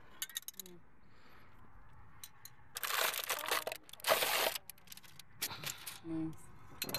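Crumpled wrapping crinkling and rustling as it is pulled off a freshly spray-painted steel wheel's hub, in two loud bursts about three and four seconds in.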